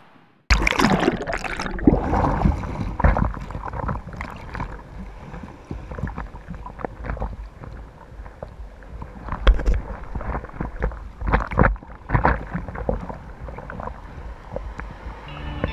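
Sea water sloshing and splashing around a waterproof camera held at the surface in breaking surf, starting suddenly with a loud rush of water, then uneven splashes and gurgles.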